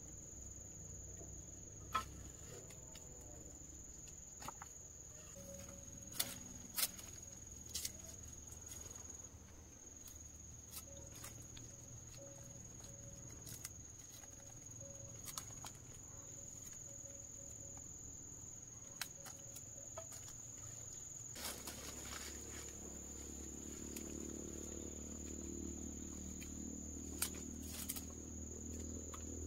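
Steady, high-pitched insect trilling that runs unbroken. A handful of sharp clicks and knocks stand out above it, a few in the first eight seconds and one near the end.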